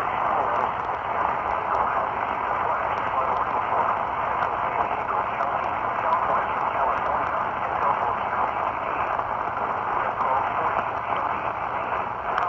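Steady, even radio static hiss from a receiver on a channel with no one speaking, sounding thin and band-limited with no distinct events.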